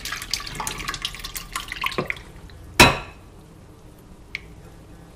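Liquid cherry gelatin with cherry pie filling and pineapple chunks pouring and splashing out of a mixing bowl into a glass baking dish, then one loud clunk of the bowl against the dish about three seconds in.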